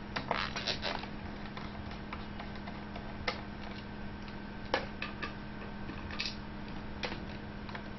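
Light clicks and ticks of a small screwdriver working the metal display-hinge screws of a MacBook Pro. There are several clicks in the first second, then single ones about every second, over a faint steady hum.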